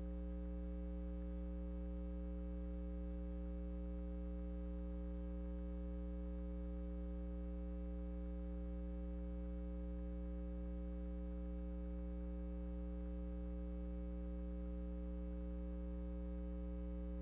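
Steady electrical mains hum on the audio line: a constant low buzz with a ladder of higher overtones, unchanging throughout.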